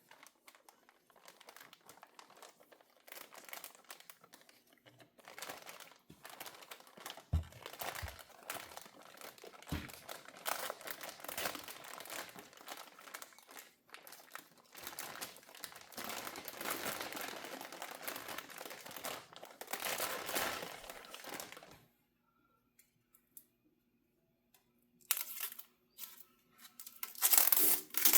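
Packaging being handled: irregular crinkling and tearing, with a few soft thumps. It goes almost quiet for a few seconds, then comes back with a couple of louder crinkles near the end.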